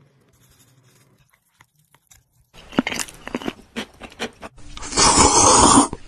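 Close-miked eating of cold noodles. It is faint at first, then crisp clicks and crunches from chopsticks and bites of shredded cucumber, then a long, loud slurp of noodles about five seconds in.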